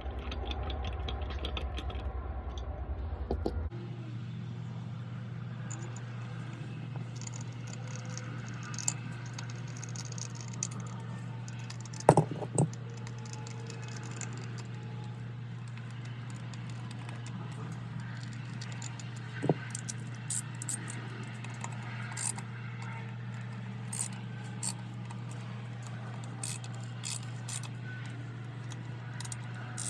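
Small metal clicks and clinks of bolts and hand tools being handled while the primary cover bolts are refitted, over a steady low hum. The hum is heavier for the first few seconds, and the loudest clinks come about twelve seconds in.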